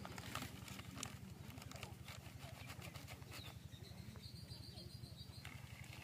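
Faint outdoor background: a low steady hum with a few light clicks, and a faint high trill for about two seconds past the middle.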